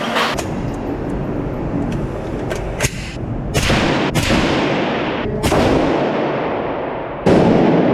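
About seven gunshots, irregularly spaced, each followed by a long echoing tail; the loudest comes near the end.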